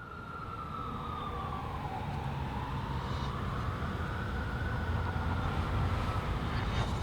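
A siren wailing slowly, its single tone falling, rising and falling again, over a low rumble that grows louder.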